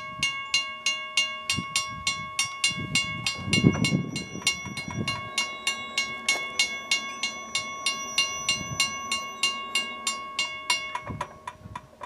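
Railroad grade-crossing warning bell ringing steadily, about four strikes a second, to warn of an approaching train, then stopping about eleven seconds in. A low rumble swells briefly about three to four seconds in.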